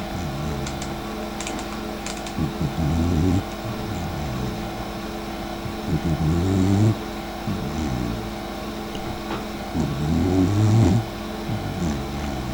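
Dachshund snoring in her sleep: a rasping snore about every four seconds, three loud ones with weaker breaths between, over a steady low hum.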